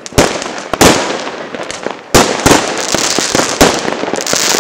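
Fireworks going off: a rapid, irregular series of sharp bangs, about eight in under five seconds.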